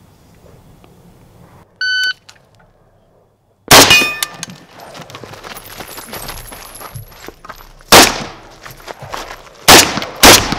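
Shot-timer start beep, then four rifle shots from an AK-pattern rifle: the first under two seconds after the beep with a short metallic ring after it, the last two close together.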